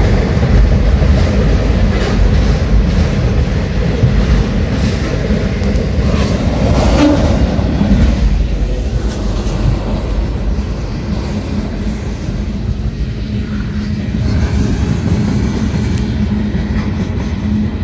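A long mixed freight train's cars (autoracks, tank cars and covered hoppers) rolling past close by: a steady rumble of steel wheels on the rails with scattered faint clicks.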